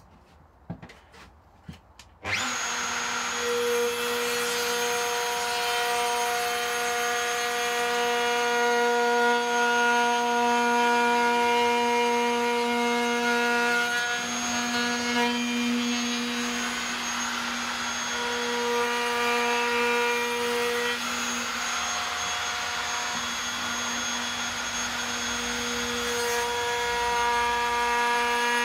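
A few small handling clicks, then about two seconds in a Triton plunge router starts and runs with a steady high whine. Its pitch shifts slightly as the cutter works along the edge of a wooden Telecaster guitar body.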